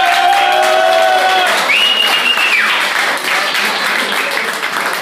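Crowd applauding, dense steady clapping, with two long high-pitched calls over it in the first half.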